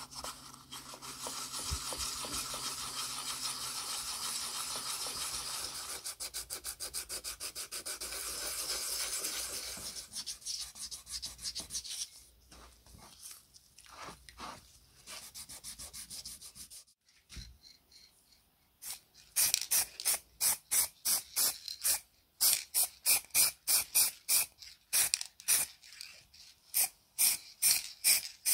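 Scrubbing a metal motor housing with a pad in soapy water: fast, dense rubbing strokes for about ten seconds, then slower, scattered scrubs. Near the end comes a louder run of short, even bursts, about two a second.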